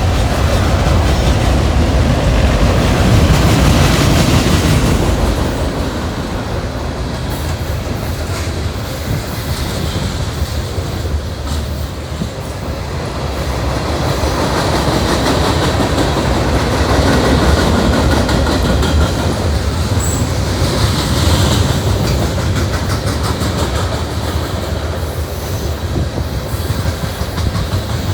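Norfolk Southern freight train rolling past at speed, its cars' wheels clicking over the rail joints with a steady rumble that swells and eases slightly.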